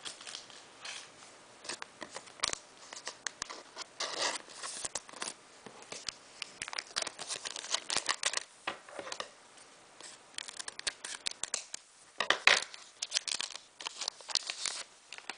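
A Pokémon card booster pack being torn open and crinkled, with its cards being handled: an uneven run of small crackles, rustles and clicks, with a few louder clusters of tearing.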